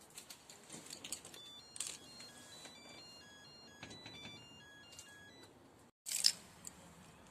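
ELTIS apartment intercom panel playing a tune of short electronic beeps at shifting pitches, with clicks among them, as its display shows OPEN: the door-unlock signal. Near the end the sound cuts out briefly, then a short loud rush of noise follows.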